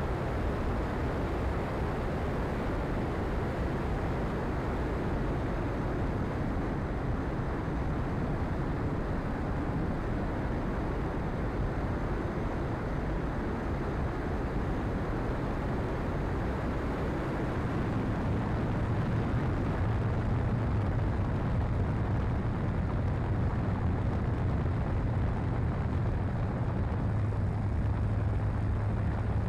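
Engine of a TopFlite Cessna Skylane RC model aircraft droning in flight, mixed with steady wind rush on its onboard camera. The engine hum grows louder a little past the middle, as the throttle opens.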